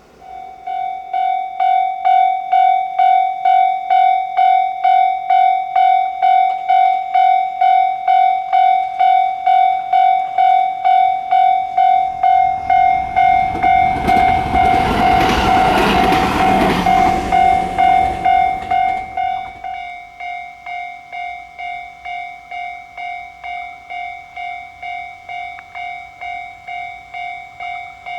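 Japanese railway level-crossing warning bell starts up and rings steadily, a pulsing electronic ding about twice a second. From about 13 to 19 seconds in, a train rushes over the crossing with a loud wash of wheel and running noise. The bell then keeps ringing, softer.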